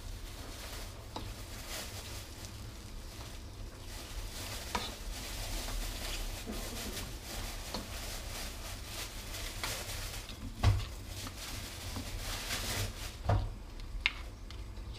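Mıhlama of butter, cornmeal and kolot cheese sizzling in a frying pan while a plastic slotted spoon stirs and scrapes through it. A few sharp knocks of the spoon against the pan and the cheese bowl come in the second half.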